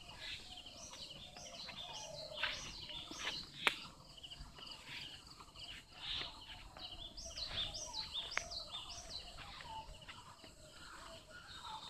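Several birds chirping and calling, with runs of short, high, falling whistled notes repeated a few times a second, over faint outdoor background noise. A single sharp click just under four seconds in.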